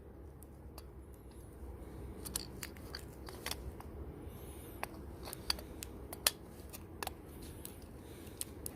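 Small, light clicks and taps of phone parts and tools being handled on a work surface as a smartphone motherboard is fitted into its frame, scattered irregularly over a faint steady low hum.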